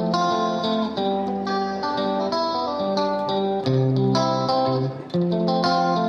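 Channel intro music led by a plucked guitar, picking a melody of short notes.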